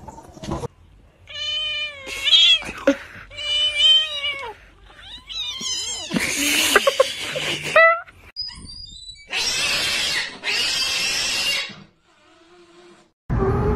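Cats meowing in several long calls that waver in pitch, followed by two long hissy bursts of about a second each.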